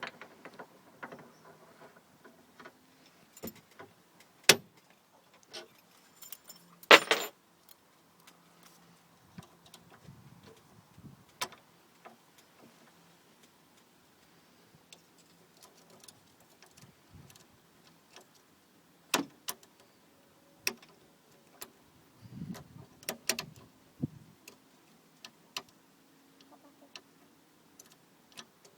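Two wire picks working inside a Union 3-lever lock, making scattered small metallic clicks and scrapes, with a few sharper, louder clicks.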